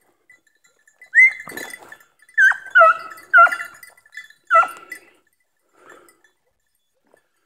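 Scent hound giving tongue while tracking a hare: five short, high-pitched barks over about four seconds, then a fainter one.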